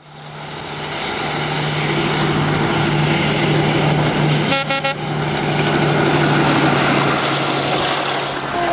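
EMD G22CU diesel-electric locomotive running with a steady low drone as it pulls its train past, fading in at the start. One short horn toot sounds about halfway through.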